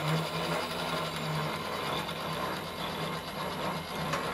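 Milling machine table power feed running steadily, traversing the table carrying the cylinder head under the face mill: a steady mechanical whir with a low hum.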